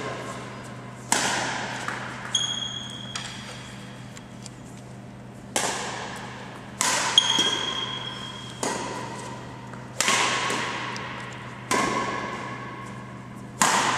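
Badminton rackets striking a shuttlecock in a rally, a sharp crack every one to two seconds, each echoing around a large sports hall. Two short high squeaks come in between hits, a few seconds in and again about halfway.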